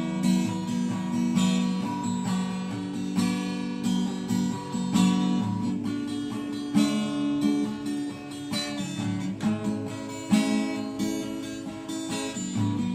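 Acoustic guitar strumming chords in a steady rhythm: an instrumental passage between the verses of a slow pop ballad.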